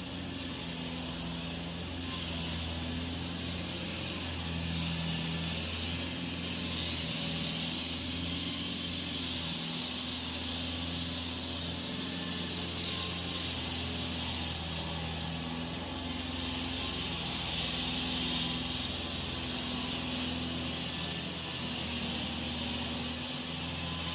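Wet concrete saw running steadily as it cuts a 4-inch concrete floor slab: a steady engine hum under a continuous hiss of blade and water spray.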